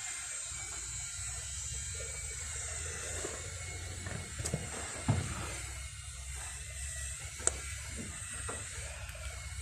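Muffled rubbing and shuffling of a man's body and clothing against the sides of a tight gap as he struggles to get out, with a low rumble from the camera rubbing against him and a few sharp knocks about halfway through and again near three quarters of the way in.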